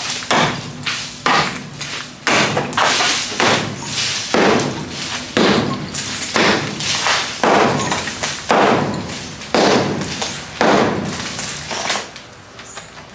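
Short-handled sledgehammer pounding the hollow concrete-block wall around a teak window frame to knock the frame out: about a dozen heavy blows roughly a second apart, stopping near the end.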